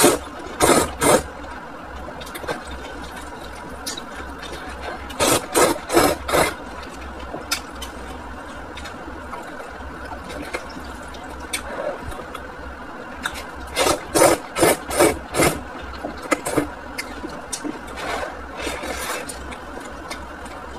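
A person slurping hot and sour noodles in a few bouts of quick, loud slurps, each bout about a second long, over a steady low hum.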